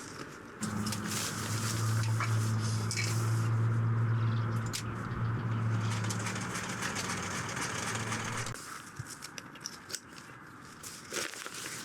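Electric sewing machine running steadily at a constant hum, starting suddenly about half a second in and stopping suddenly after about eight seconds, with light clicks before and after.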